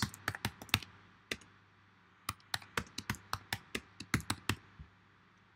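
Typing on a computer keyboard: a short run of keystrokes, a pause of about a second, then a steady run of about a dozen keystrokes, four or five a second, that stops shortly before the end.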